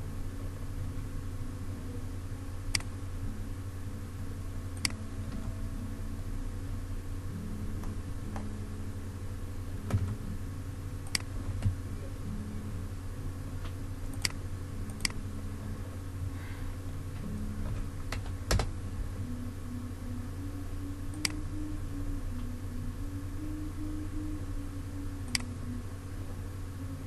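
Scattered single clicks of a computer mouse and keyboard, about a dozen at irregular intervals, over a steady low hum.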